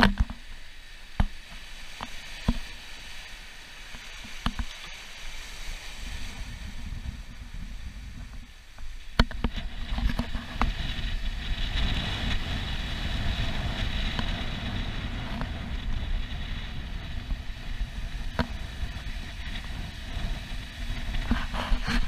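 Rushing water of a sailing catamaran's wake churning past the hull at speed, with wind rumbling on the microphone and a few sharp knocks. The rush grows louder about nine seconds in.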